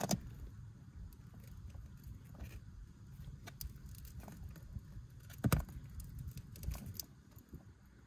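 Hand crimping tool squeezing a butt connector onto a wire, with small metallic clicks and rustles of the tool and wires being handled, and a sharper click about five and a half seconds in.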